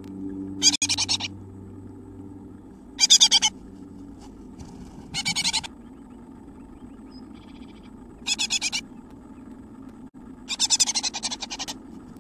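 Great tit inside its nest box making five short, rapid rattling bursts a couple of seconds apart, over a low steady electrical hum.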